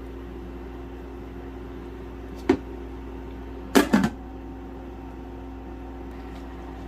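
Steady motor hum with a few low, level tones, broken by a sharp click about two and a half seconds in and a quick double knock just before the four-second mark.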